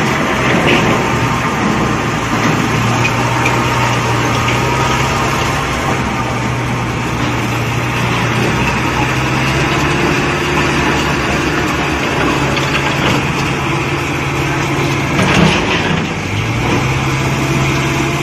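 Diesel engine of a yellow Indo Power pick-and-carry crane running at a steady idle, its speed sagging a little and picking up again near the end, with a brief knock about fifteen seconds in.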